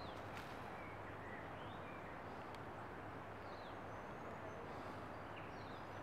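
Steady outdoor background hush with faint, brief chirps of small birds scattered through it.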